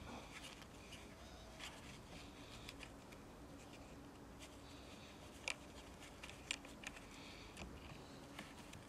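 Faint clicks and light handling noises of small chainsaw parts being fitted by hand, as the choke rod is put back onto the Stihl chainsaw's carburettor. The sharpest click comes about five and a half seconds in.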